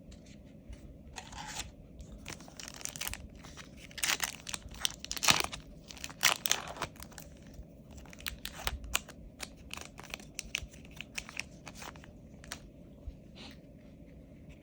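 A foil Yu-Gi-Oh booster pack wrapper being torn open and crinkled: a run of short rustling and tearing sounds, loudest a few seconds in.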